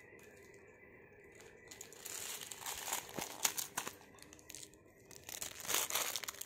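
Clear plastic wrapper crinkling as it is handled, in two spells of faint rustling: the first starting about two seconds in, the second near the end.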